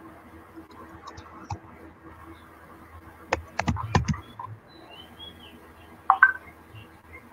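A cluster of sharp clicks and knocks about three to four seconds in and another short pair near the end, over a faint steady hum.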